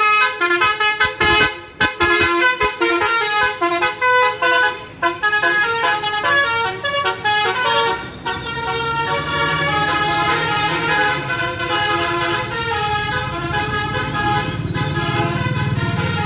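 Indonesian tour bus 'telolet' musical horn playing quick multi-note tunes, in short bursts for the first few seconds and then more continuously, over the low hum of the bus engine climbing a steep hill.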